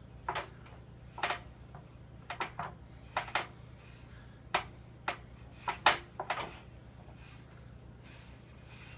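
Hands working sticky pasta dough of flour and egg on a board: irregular soft taps, clicks and knocks, most of them in the first six and a half seconds, over a steady low hum.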